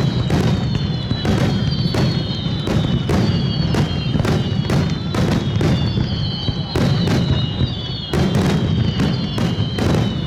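A dense barrage of aerial fireworks: bursts go off several times a second over a continuous low rumble, with crackle between them. A high falling tone repeats about every two seconds over the bursts.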